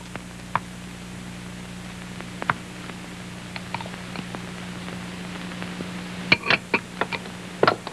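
Kitchen utensils being handled while whipped cream substitute is spread, heard as scattered light clicks and then a few sharper knocks about six seconds in and near the end, over a steady hum and hiss.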